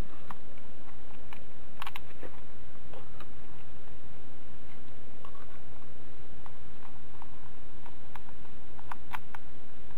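Small sharp plastic clicks and taps from a handheld clamp meter's plastic case being handled, scattered irregularly, with a louder cluster about two seconds in and again near the end, over a steady low hum.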